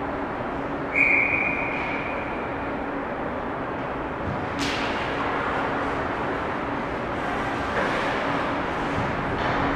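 Ice hockey rink during play, heard through the glass: steady arena noise with a low hum. A single high tone starts sharply about a second in and fades out within two seconds, and a sharp crack comes a little under five seconds in.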